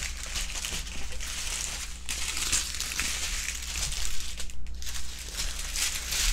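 Small clear plastic bags of diamond-painting drills crinkling as they are handled and laid out, with a brief lull a little past halfway.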